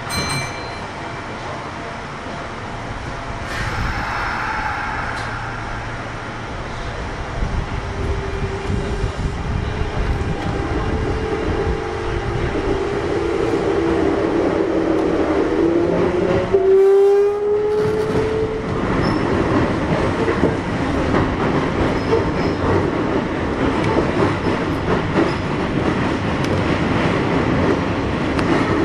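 Kintetsu 1021 series train heard from on board while accelerating: the Hitachi GTO VVVF inverter and traction motors give a whine whose pitch climbs steadily. About 17 seconds in the tone shifts abruptly. Wheel and track noise grows louder with speed.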